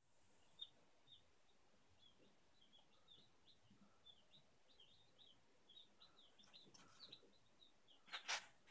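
Faint, busy peeping of a brood of two-to-three-day-old chicks (Sussex, Wyandotte and Marans), many short cheeps overlapping throughout. Near the end come two louder, sharp sounds.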